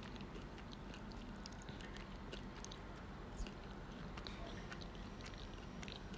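Quiet room tone with a faint low hum and scattered soft clicks, one a little louder about three and a half seconds in.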